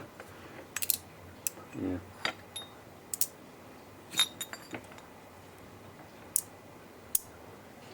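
Small metal parts from a car air-conditioning compressor clicking and clinking against each other and against a magnet as they are handled and set down, a dozen or so sharp clicks spread out irregularly.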